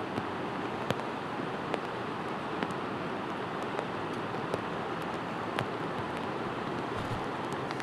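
Floodwater in a swollen river rushing steadily, with sharp ticks about once a second.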